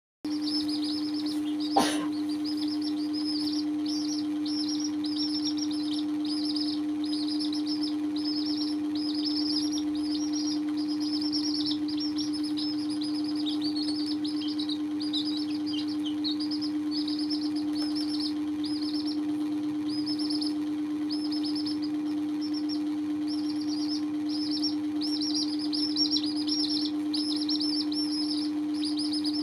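Baby chicks peeping without pause, a quick run of high, falling peeps, over a steady low hum. A single sharp knock sounds about two seconds in.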